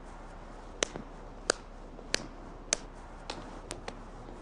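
A series of sharp, light clicking taps in time with a dance, about one every half second and coming a little quicker near the end, over faint room hiss.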